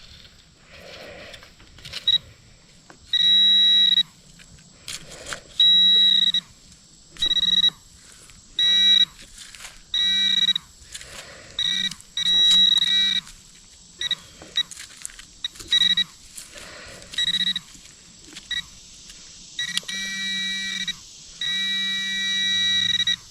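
Handheld metal-detector pinpointer sounding a steady electronic tone in repeated on-off stretches, some short and some held for a second or more, as it is passed through the dug soil to find a buried metal target. Soft scrapes and clicks of dirt being handled come between the tones.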